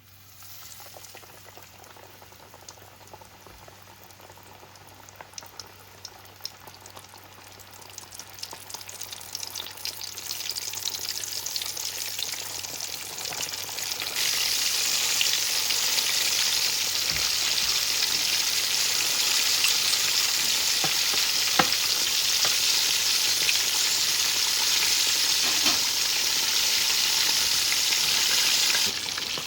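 Breaded fish deep-frying in a pot of hot oil: a steady sizzle with scattered crackles. It starts faint, builds over the first half and jumps louder about halfway through.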